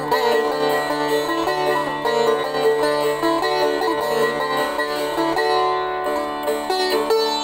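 Instrumental background music: a plucked string instrument playing a melody over a held low note.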